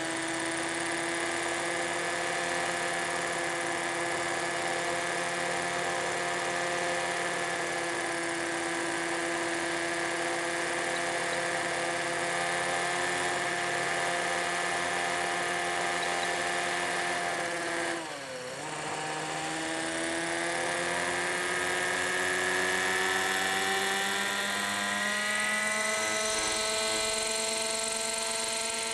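Kyosho Caliber 30 RC helicopter hovering: its small nitro engine and rotor running with a steady buzzing whine. About two-thirds of the way through the pitch and loudness dip sharply for a moment and come straight back, and near the end the pitch rises slowly.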